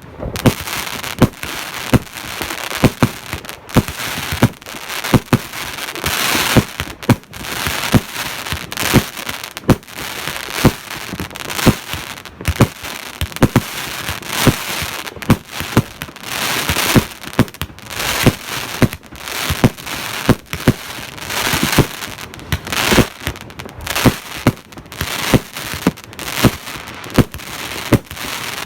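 A 200-shot fireworks battery (cake) firing a steady run of sharp bangs, about one or two a second, with noisy crackling stretches between the shots.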